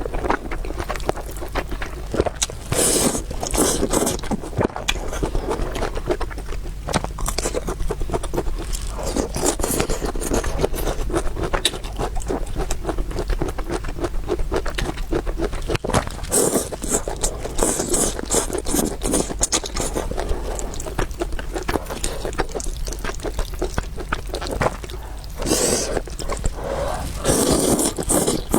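Close-miked eating of noodles and meatballs: continuous wet chewing and mouth clicks, with a few louder noisy stretches of a second or two.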